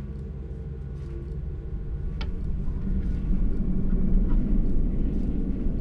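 Low, steady rumbling drone, the kind of ominous sound-design tone used in a horror scene, swelling in loudness from about two seconds in.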